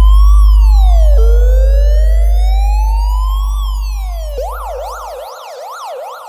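Electronic siren sound with a slow wail rising and falling, switching to a rapid yelp about four seconds in, over a very loud deep bass tone that fades away and stops about five seconds in.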